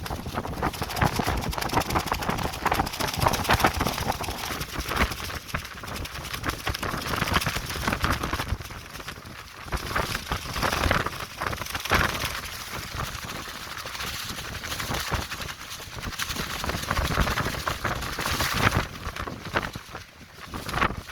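Clear plastic tent sheeting flapping and rattling rapidly in strong, gusting wind, mixed with wind noise. The flapping surges louder and quieter with the gusts.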